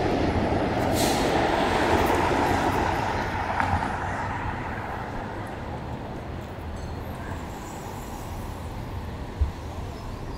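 City street traffic: a heavy vehicle passes close by and fades over the first four seconds or so, leaving a lower steady traffic hum. A brief low thump comes near the end.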